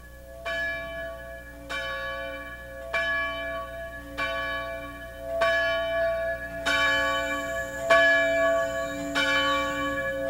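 A bell tolling, struck about once every 1.2 seconds, eight strikes, each ringing on into the next and growing louder.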